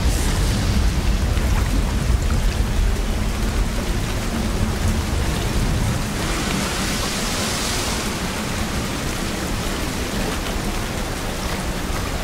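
Steady heavy rain, with a low rolling rumble of thunder through the first half that eases about halfway through, followed by a brief surge of brighter rain hiss.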